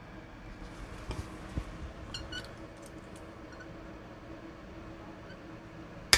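Small metal tools and fret wire being handled over a guitar neck during a re-fret: a few soft clicks, then light metallic ticks with short rings. Near the end come two sharp metallic clicks, the louder first, of fret tang nippers or fret wire on the bench.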